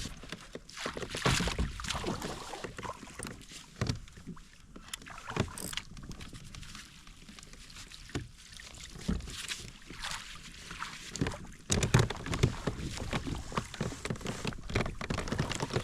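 Irregular splashing and sloshing water with scattered knocks and thumps against a small boat, as a hooked coho salmon is worked alongside and brought to the net.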